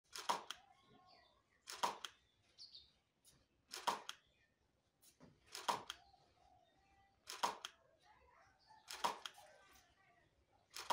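Faint camera shutter clicks, a short sharp cluster about every second and a half to two seconds, seven times, as product shots are taken in a small studio.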